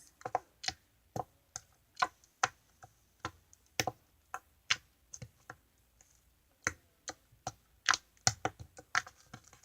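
Slime being poked and squeezed by hand, making a string of irregular sharp clicks and pops, about two or three a second, coming thicker near the end.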